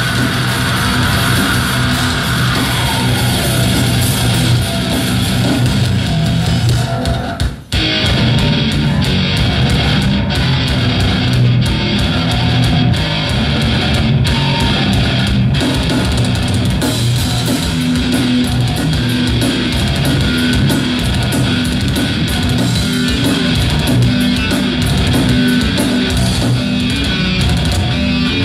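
Live heavy metal band playing: distorted electric guitar, bass and drum kit. The sound drops out briefly about seven and a half seconds in, then the band carries on.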